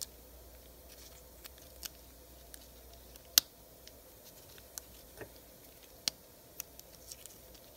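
Scattered small clicks and taps of metal parts being handled as thin vanes are fitted back into the slots of a Rodac air drill's motor rotor. The sharpest click comes about three and a half seconds in.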